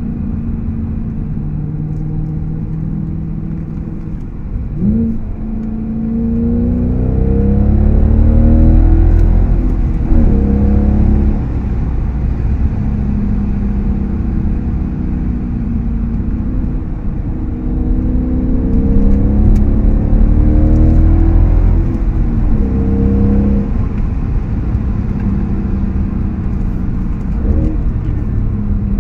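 Audi S5 engine through an AWE Tuning aftermarket exhaust, heard from inside the cabin while driving. The car accelerates through the gears: the engine note climbs and drops back at each shift, with two louder stretches of deep exhaust rumble under hard throttle.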